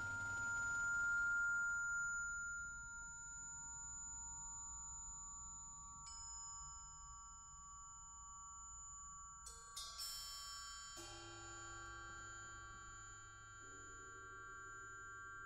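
Percussion ensemble playing sparse metal keyboard percussion, vibraphone among it: several high notes ring on and overlap as sustained tones. A soft hiss fades out in the first two seconds. A single note is struck about six seconds in and a quick cluster of notes about ten seconds in, then lower notes enter around eleven seconds and again near the end.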